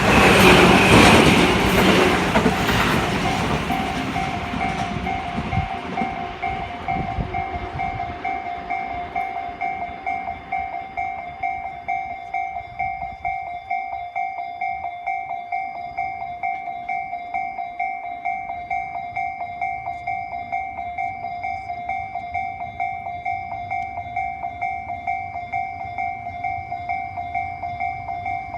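Railway level-crossing alarm ringing in steady, even dings, about two a second, throughout. A train rushes over the crossing for the first five seconds or so and fades away.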